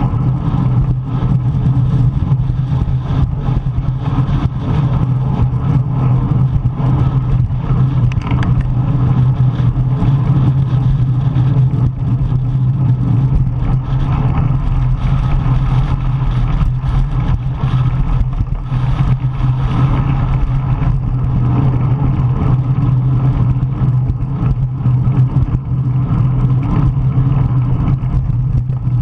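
Steady, loud wind noise buffeting the microphone of a camera riding with a racing bicycle in strong gusty wind.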